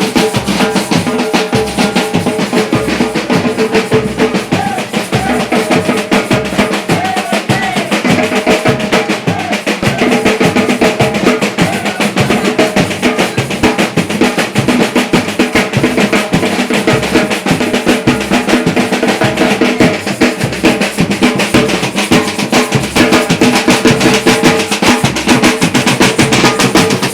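Batucada samba drum ensemble (bateria) playing a fast, dense rhythm of many drums at once, with strokes packed closely together.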